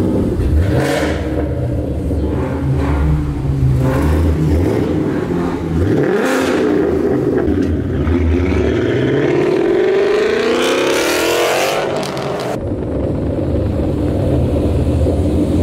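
Ford Mustang GT 5.0 Coyote V8 engines revving, with a few sharp pops. The engine note climbs steadily in pitch from about six seconds in to about twelve, then drops suddenly to a lower, steady drone.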